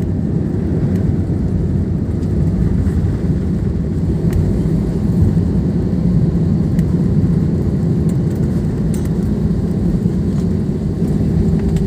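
Steady low rumble inside the cabin of an Airbus A320 on the ground just after landing: engine and wheel noise while the airliner rolls along the runway or taxiway.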